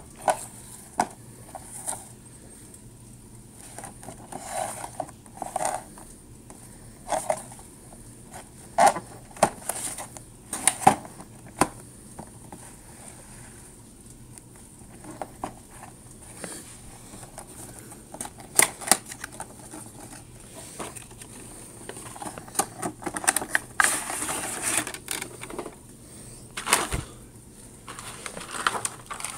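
Cardboard toy-train box being handled on a wooden table: scattered taps and knocks with short scraping, rustling sounds as it is turned over and slid about.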